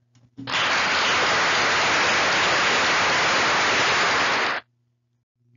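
A steady burst of hiss-like noise, like static or rain, added to the soundtrack: it starts just under half a second in and cuts off suddenly about four seconds later.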